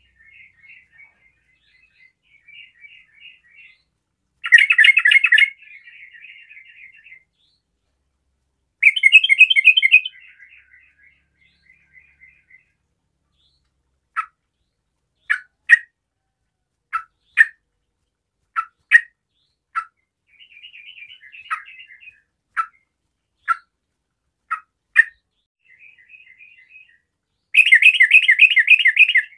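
Yellow-vented bulbul singing: three loud, fast bubbling bursts of song, with softer chattering between them and a long run of short, sharp single notes in the middle.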